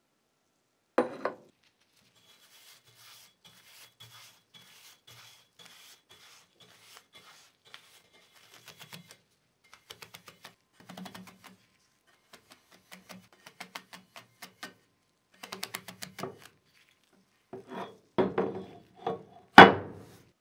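A bristle brush rubbing seasoning oil over a cast-iron Wagner cornstick pan in runs of short scratchy strokes, with a few sharp knocks of the heavy pan being handled, the loudest near the end.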